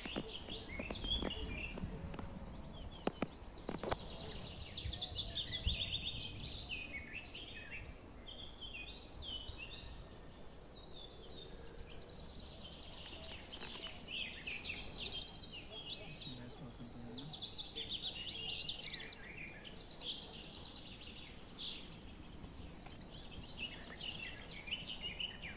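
Many small birds singing and chirping at once, high overlapping calls that come and go throughout. A few faint knocks sound in the first few seconds.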